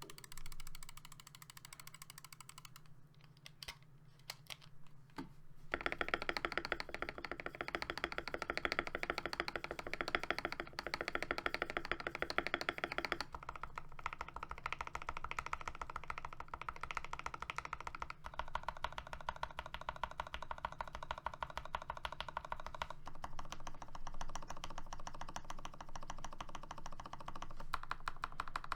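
Typing on a Keychron V1 mechanical keyboard with hand-lubed, filmed Gateron Oil King linear switches and PBT keycaps. A few scattered keystrokes at first, then steady, fast continuous typing from about six seconds in.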